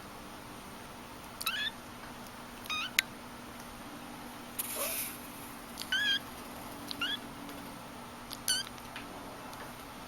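Kitten mewing: about six short, high-pitched mews spaced out over several seconds. A single sharp click comes about three seconds in, and a brief rustle comes near the middle.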